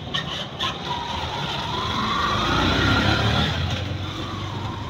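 A motor vehicle passing close by on the road, its engine getting louder to a peak about three seconds in and then fading, with a rising whine.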